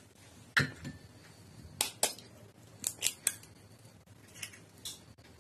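Eggshells being tapped with a metal spoon and cracked open over a glass mixing bowl: a series of short, sharp taps and cracks, about eight in a few seconds.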